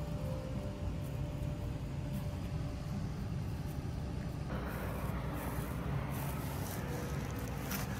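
A steady low rumble, with faint scattered clicks and crunches of a small dog gnawing and mouthing a cooked ham bone.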